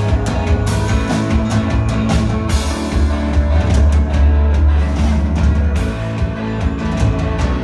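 A rock band playing live, loud and full, with heavy bass and a steady beat of drum and cymbal strokes.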